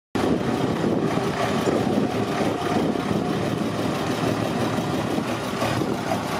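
Star fire truck's diesel engine idling steadily.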